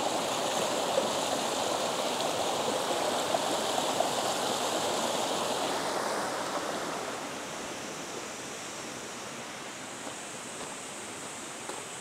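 Rocky mountain stream running over stones and a small cascade, a steady rush of water that drops to a quieter level about seven seconds in.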